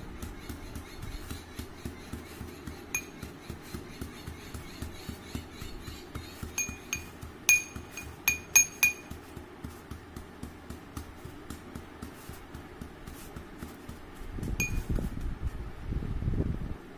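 Neem leaves being pounded with a metal pestle in a mortar: quick repeated knocks, several a second, with a few sharp ringing metal clinks, the loudest about halfway through. A low rumble joins in for the last few seconds.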